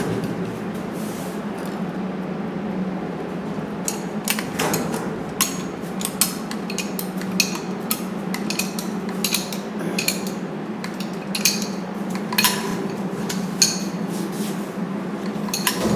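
Sharp metallic clinks and taps, irregular and about a second apart, as a tool works a steel isolator bracket held against the ceiling, over a steady low hum.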